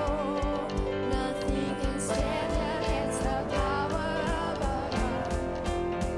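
Church worship band playing an instrumental stretch of a praise song, over a steady drum beat.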